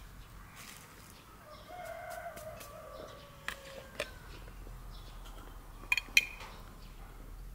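A rooster crows once, a long call starting about a second and a half in and falling slightly in pitch over about two and a half seconds. Sharp clicks follow, the loudest a close pair near the end, as a small jar is picked up and handled.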